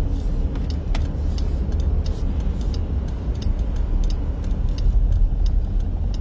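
A steady low rumble of road and engine noise inside a moving car, with light clicks and jingles scattered through it.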